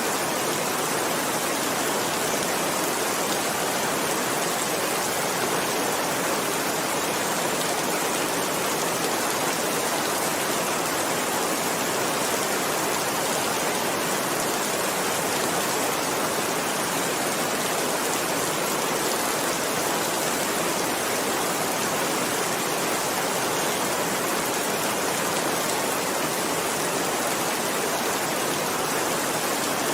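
Steady heavy rain, an even, unbroken hiss with no thunder.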